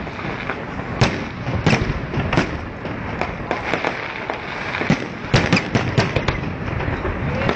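Fireworks display: a run of sharp bangs from bursting shells at irregular intervals, thickest in a dense cluster about five to six seconds in, over a continuous din, recorded on a mobile phone.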